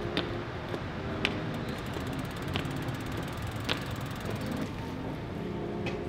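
Steady street background noise with a few sharp clicks, about one a second.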